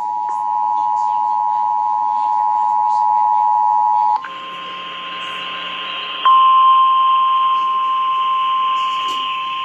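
Emergency Alert System two-tone attention signal, a steady two-note chord, cuts off about four seconds in and gives way to a buzzier mix of alert tones. About two seconds later a louder single steady tone begins and holds: the 1050 Hz NOAA Weather Radio warning alarm tone that heralds the flash flood warning.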